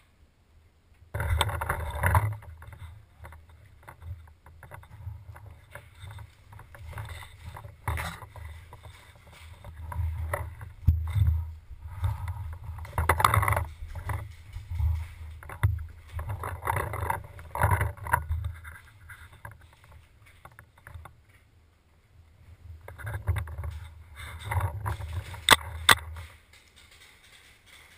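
Rumbling and rustling handling noise on an action camera carried by a paintball player on the move, footsteps and gear shifting, in several loud stretches. A few sharp clicks or knocks stand out, the loudest near the end.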